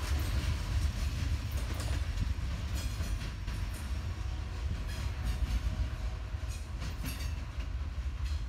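Loaded ballast train of hopper cars rolling on the rails: a steady low rumble with irregular clicks of wheels passing over rail joints.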